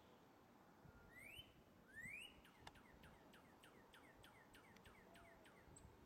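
Northern cardinal singing faintly: two rising slurred whistles, then a quick run of short down-slurred notes, about three a second, that lasts some three seconds.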